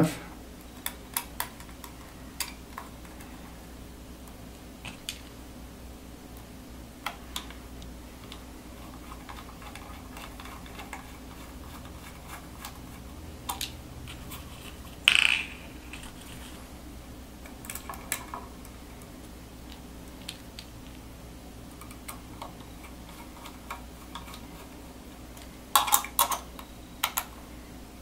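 Scattered light clicks and taps of a metal laptop hard-drive carrier, small screws and a screwdriver being handled while a solid state drive is fitted into the tray and screwed in. A brief louder scuff comes about halfway through, and a quick run of clicks near the end.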